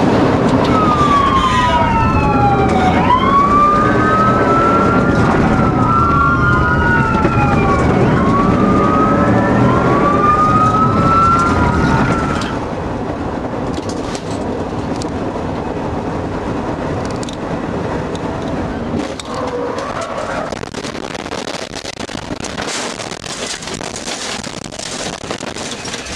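Police siren wailing, its pitch sweeping up and down over loud vehicle road and engine noise; the siren cuts off about halfway through, leaving quieter vehicle noise with a few clicks and knocks.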